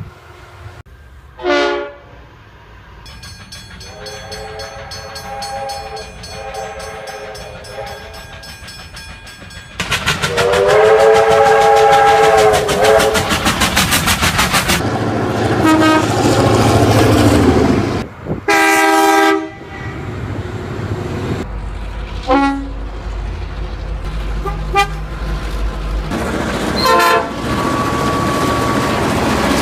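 A string of train horn blasts from several recordings cut together. There are short toots and a long held blast, and the loudest blast comes about ten seconds in over the rumble and rapid clatter of a passing train, its pitch sagging as it ends. More short blasts follow near the end.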